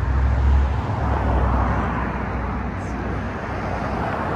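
Road traffic noise from passing cars: a steady rush, with a deep rumble that eases off about a second in.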